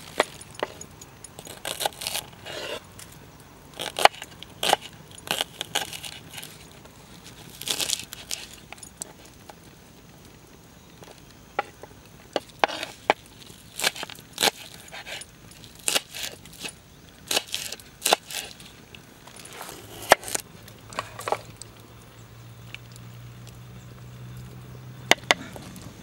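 A string of irregular sharp clicks, knocks and crackles, with a faint low hum coming in about twenty seconds in.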